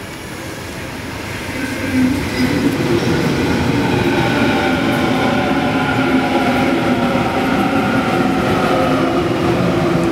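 Sydney Trains Waratah (A set) double-deck electric train arriving at a platform. It grows louder over the first two seconds as it draws alongside, then runs past steadily with a whine from its electric drive, the pitch falling gently as it slows.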